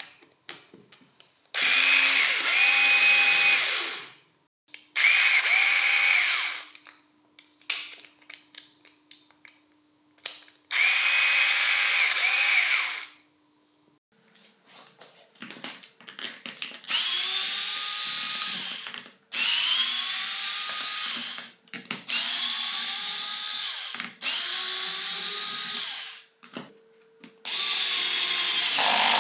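Earth Man 2.4V mini cordless screwdriver's small electric motor running in short bursts of two to three seconds, about eight times, each run whining up to speed and winding down when released. Small clicks and knocks come between the runs.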